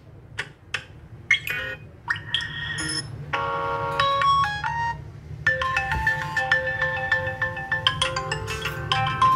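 Vivo V15 smartphone's ringer loudspeaker playing brief previews of built-in ringtones one after another, each cut off as the next is tapped, with a longer melody from about halfway through. The ringer speaker is working after repair.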